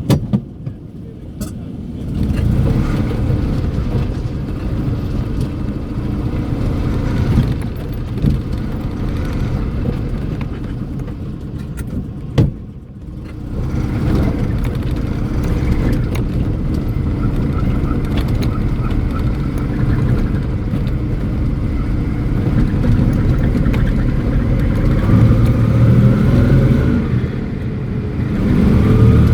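Invacar three-wheeler's engine and belt-drive transmission under way, heard from inside the small cabin. It steps up about two seconds in and dips briefly about halfway through. A whine rises in pitch near the end, from a transmission in which the owner suspects a failing bearing.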